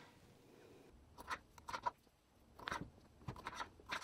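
Serrated knife cutting grape tomatoes into quarters, the blade tapping faintly and irregularly on a plastic cutting board, often two taps close together.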